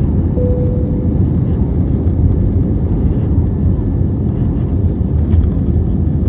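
Airbus A320neo cabin noise heard from inside the cabin: a loud, steady low roar from the CFM LEAP-1A engines and airflow. About half a second in, a short steady tone sounds for under a second.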